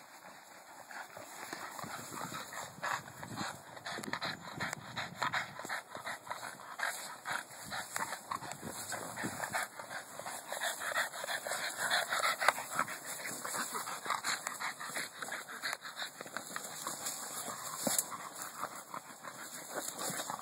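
Two Boston terriers making excited dog noises as they play rough with a large inflatable ball, over a dense, irregular run of quick scuffling sounds. It starts quiet and picks up about a second in.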